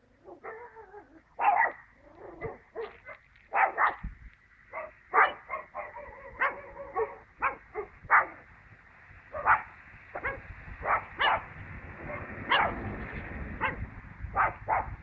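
A dog barking over and over, in short barks often less than a second apart. From about ten seconds in, the low rumble of a passing tractor engine rises beneath the barks.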